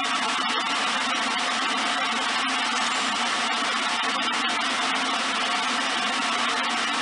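Workshop machinery running steadily: an even, unbroken hum and hiss with no rhythm or breaks.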